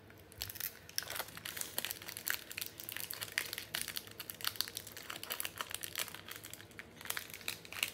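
A small plastic snack wrapper crinkling as it is handled and opened, a dense run of quick, sharp crackles.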